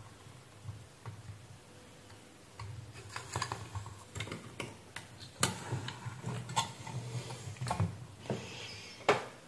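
Scattered light clicks and knocks from a circuit board on its metal bracket being handled and shifted on a workbench, the loudest knocks about five and a half seconds in and just before the end, over a faint low hum.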